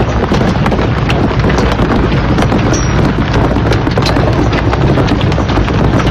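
Large hailstones pelting down in a dense, continuous clatter of hard hits.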